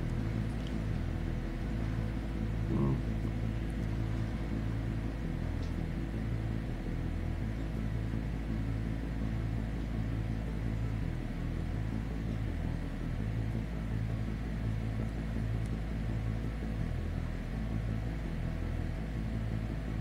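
Steady low rumble of storm wind against the house, heard from indoors through a closed window, with a faint steady hum underneath. A brief knock about three seconds in.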